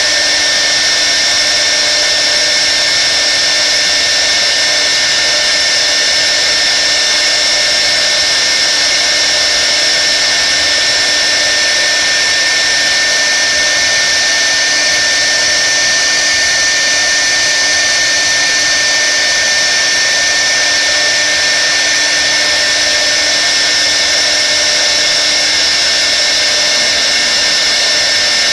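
CNC router's high-speed spindle running steadily while its bit carves a relief into particleboard: a constant high whine with a hiss above it.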